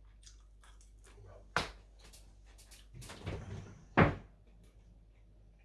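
Kitchen wall-cupboard door being opened: a sharp click about a second and a half in, then a louder knock about four seconds in.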